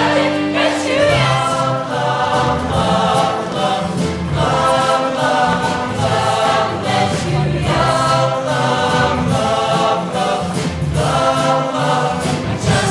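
Mixed show choir of male and female voices singing in full harmony, in short rhythmic phrases about a second long, over steady low accompanying notes.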